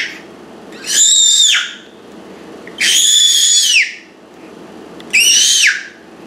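A six-month-old baby girl squealing happily: three very high-pitched squeals of about a second each, each rising and then falling in pitch, with short pauses between.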